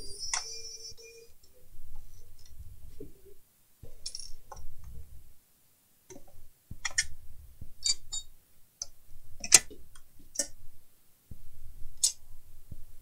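Sheet-metal cover of an HP desktop PC power supply being worked loose and lifted off its case: sharp metallic clicks and knocks, one near the start ringing on briefly, with low rumbling handling noise between them.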